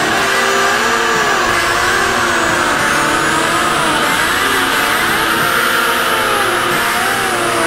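A loud, dense droning wash of noise with several tones sliding slowly up and down over it in overlapping arcs, an engine-like electronic soundtrack drone.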